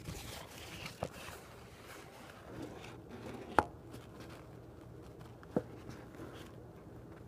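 Handling noise from a phone held against a wet chamois cloth while it is being wrung out: faint rubbing, with three sharp knocks, the one about three and a half seconds in the loudest.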